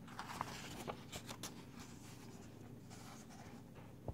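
Pages of a paperback coloring book rustling and sliding as they are turned and handled, with a few soft paper ticks and swishes, mostly in the first second and a half.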